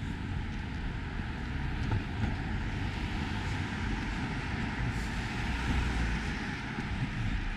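Traffic on a city street: a car drives past, its tyre and engine noise growing louder in the middle and then fading, over a steady low rumble.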